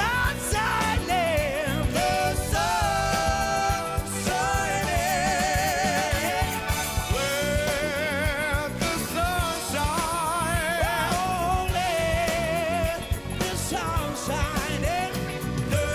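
A singer holding long notes with wide vibrato over a full band with a steady drum beat.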